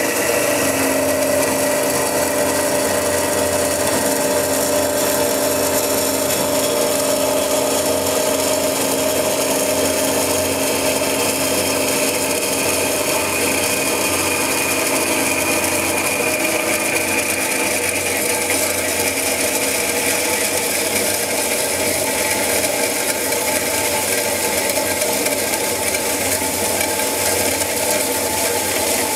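JMT WV260 metal-cutting band saw running steadily as its blade cuts through square metal tubing.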